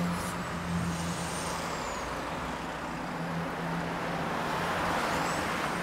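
City street traffic: vehicles passing with a low steady engine hum, and a rush of tyre and engine noise that swells near the end.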